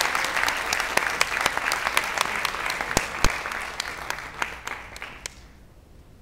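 Audience applauding in a lecture hall, dense clapping that thins out and stops about five seconds in, leaving quiet room tone.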